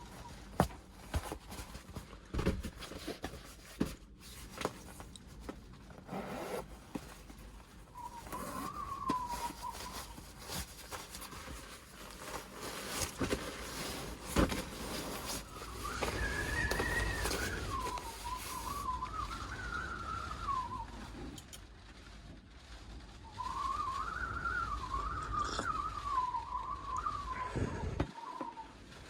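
Storm wind whistling around a kei van, heard from inside the cabin: a wavering tone that rises and falls in pitch in several long gusts, over a low rumble of wind buffeting the body. Scattered sharp knocks and clicks sound inside the van.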